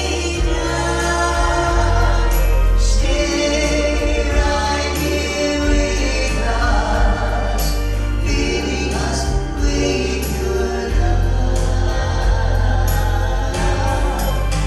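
Gospel vocal group singing in harmony over instrumental accompaniment with a strong, steady bass line.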